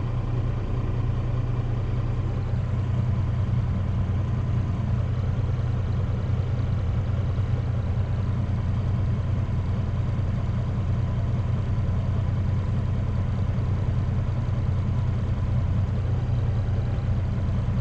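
Semi-truck's diesel engine idling steadily, a constant low hum.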